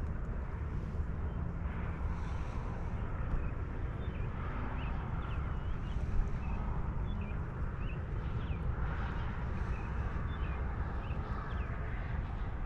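Wind rumbling steadily on the microphone, with a small bird chirping in short, quick calls from about four seconds in until near the end.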